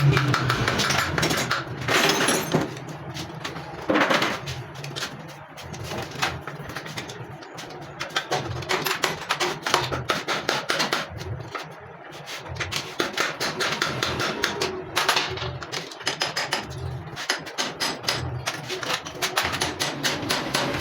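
Workshop hand-tool work on a motorcycle engine and frame: irregular metal clicks and knocks, with stretches of rapid clicking like a ratchet wrench.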